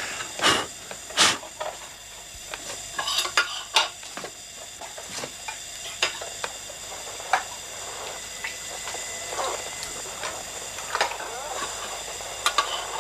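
Irregular clicks, taps and crackles from a home-built radio set being worked on, over a steady high hiss. A few louder clicks come in the first second or two.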